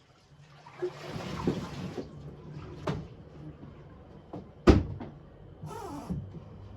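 Household handling noises: a few short knocks and clatters, with one sharp knock about two-thirds of the way through, over a low steady hum.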